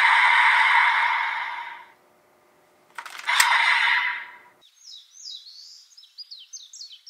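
A loud steady hiss stops about two seconds in; after a short gap come a click and another brief burst of hiss. From about four and a half seconds in, birds sing with quick, repeated high chirps.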